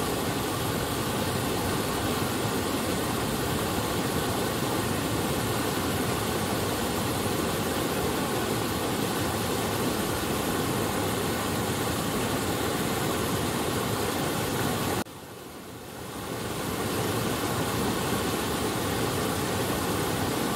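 Water rushing and churning steadily over a low rocky cascade, a continuous white-water roar that drops suddenly for a moment about three-quarters of the way through and then swells back.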